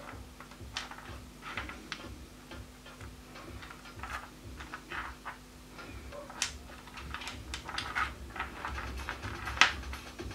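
Small pieces of rough opal clicking and tapping against each other and against fingers as they are picked up and turned over by hand: light, irregular clicks, the sharpest about nine and a half seconds in. A faint steady hum runs underneath.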